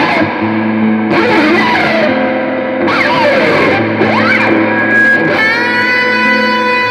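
Electric guitar through effects, sustained layered notes with swooping pitch glides sliding up and down, then settling on one long held note about five seconds in.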